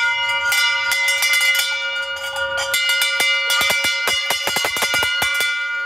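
A boat's brass bell rung by hand, struck over and over in quick succession so its ringing runs on between strikes. The strikes come faster in the second half and stop shortly before the end.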